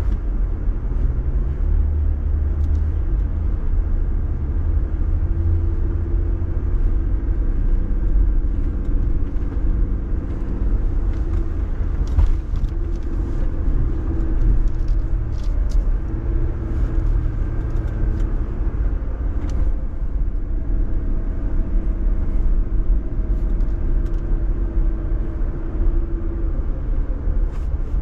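Jeep driving off-road with a steady low engine and drivetrain rumble whose pitch wavers with the throttle, and scattered light clicks and rattles, most of them in the middle of the stretch.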